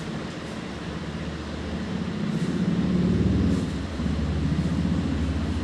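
Handheld electric massager running with a steady low buzz, growing louder about two seconds in and dipping briefly near four seconds as it is pressed against the body.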